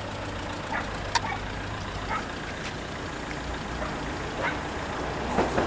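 Minuetto diesel multiple unit approaching the level crossing. Its low engine rumble builds over the last couple of seconds, and the first clicks of its wheels on the rails come right at the end.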